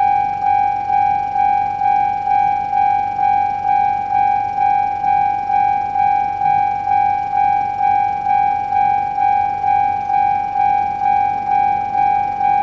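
Japanese railway level-crossing warning bell ringing steadily: one ringing tone struck just under twice a second, each stroke fading before the next.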